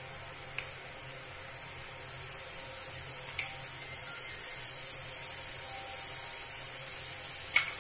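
Butter melting and sizzling in a hot pot, the sizzle slowly growing louder, with a spoon clicking against the pot three times as it pushes the butter around.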